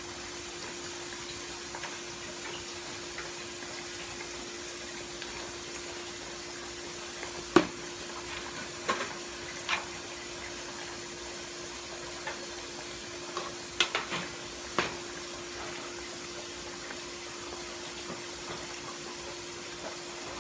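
Pork steaks simmering in broth in a skillet, a steady bubbling hiss over a constant hum. Between about seven and fifteen seconds in, metal tongs click sharply against the pans several times, loudest at the first.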